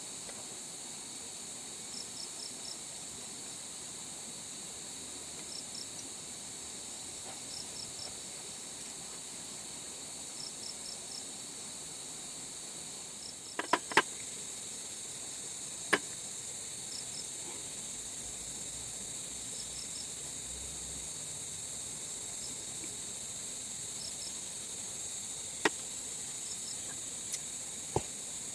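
Steady high-pitched insect chorus with a cricket chirping in short groups of three or four pulses every second or two. A few sharp clicks or knocks come about halfway through and again near the end, louder than the insects.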